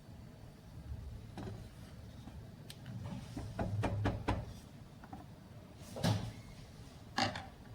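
Kitchen handling noises: a scattered series of short knocks and clicks, with a cluster around the middle and the loudest two about six and seven seconds in.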